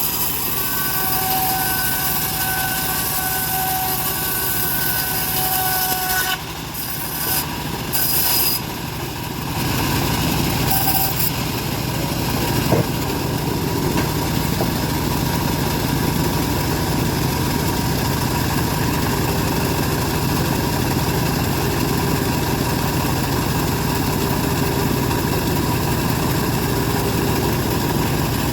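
Sawmill band saw running steadily. A whine sounds over the first six seconds, then the sound shifts and settles into an even run from about ten seconds in.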